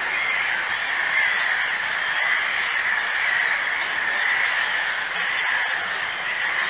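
A steady chorus of many overlapping animal calls from the lake and reeds. It forms an even, continuous wash strongest in the middle-high range, with no single call standing out.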